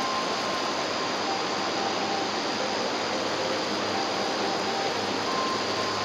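Steady rush of a mountain stream and small waterfall pouring into a rocky pool, an even hiss with no breaks.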